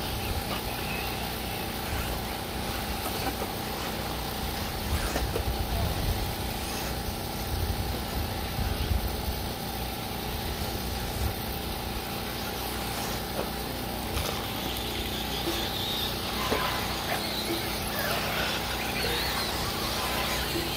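1/8-scale electric RC buggies racing on a clay track: the whine of their electric motors rising and falling as they accelerate and pass, with tyre noise and a few sharp clicks.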